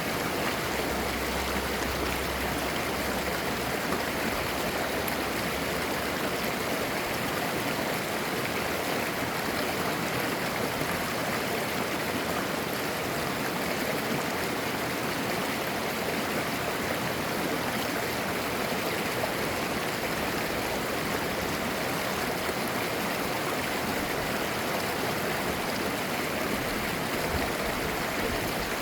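Valley stream babbling steadily: an even, unbroken rush of running water.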